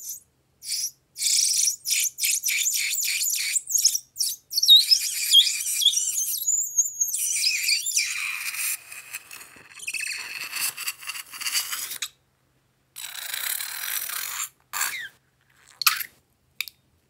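Liquid squeezed out of a rubber balloon through a narrow nozzle onto slime: a quick run of wet spurts, then short squeaks and sputtering hiss as liquid and air are forced out, with a few short squeaks from the rubber balloon being handled near the end.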